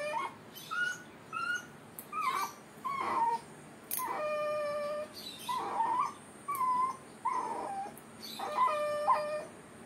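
Puppy whining and crying in a run of short high whimpers, with two longer drawn-out howling cries, one about four seconds in and one near the end. It cries as its freshly cropped ear is being sutured.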